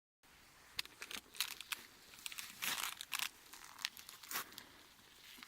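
Irregular crunching and crinkling, a string of short crackly sounds with a few sharp clicks among them.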